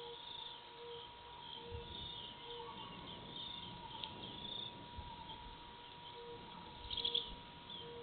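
Faint evening ambience of insects and birds chirping, with a short louder burst of bird chirps about seven seconds in. A thin steady tone and a soft call repeating under a second apart run underneath.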